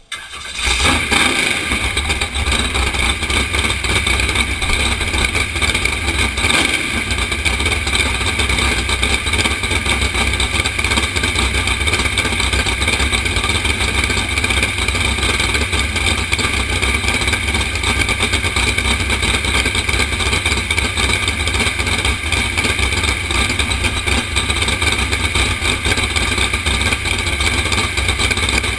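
Flat-bottom drag boat's engine, loud and steady, coming in abruptly out of quiet at the start and holding an even level throughout.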